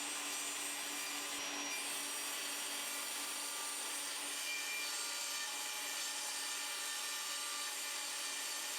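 Mafell Erika table saw running steadily, heard faintly as an even whirring hiss with a light whine.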